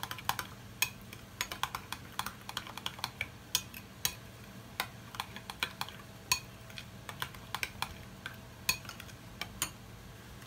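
Spoon stirring mayonnaise and mustard in a glass bowl, clinking against the glass in many quick, irregular clicks.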